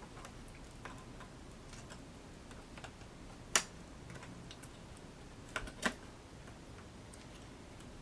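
Small sharp clicks of Corsair Vengeance DDR3 laptop RAM modules being slid into the memory slots and pressed down into their retaining clips. Faint scattered clicks, with the loudest about three and a half seconds in and two more close together near six seconds.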